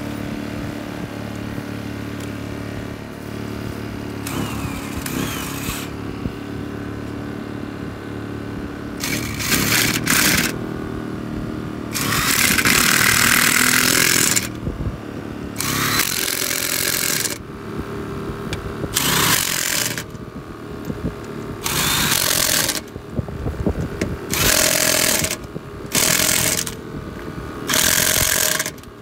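Corded electric impact wrench hammering on the lug nuts of a trailer wheel in about eight bursts of one to two seconds each, starting about nine seconds in. Under it is the steady hum of a Briggs & Stratton portable inverter generator powering the wrench.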